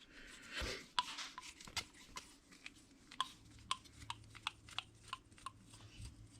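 Light, irregular clicks and taps of a small brushless RC car motor being handled and turned over in the hands, with a brief rustle about half a second in.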